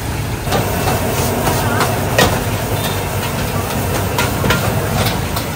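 Busy street noise: a steady hum of motorbike traffic, with scattered clicks and faint voices in the background.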